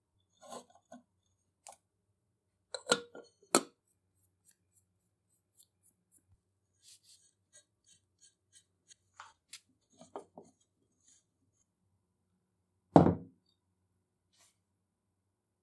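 Scattered light metallic clicks and clinks of small metal parts and tools being handled, with a heavier knock about thirteen seconds in.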